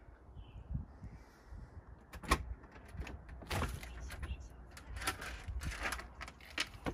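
A front door being unlatched and opened from inside: several short clicks and knocks of the latch and door, the first about two seconds in and more over the next few seconds, over a low steady rumble.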